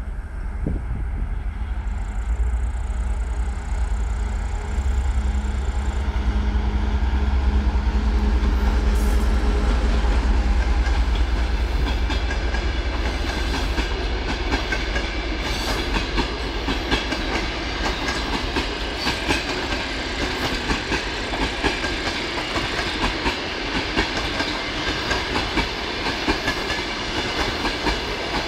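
TEP70 passenger diesel locomotive's 16-cylinder diesel engine running as it approaches and passes, its deep rumble loudest about ten seconds in. Then the passenger coaches roll by with a rhythmic clickety-clack of wheels over rail joints.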